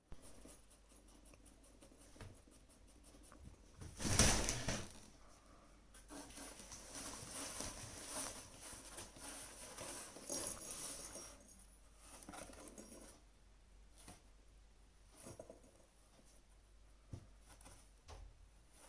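Faint scratching and rustling of a small animal, with a louder rustle about four seconds in and a longer spell of rustling in the middle.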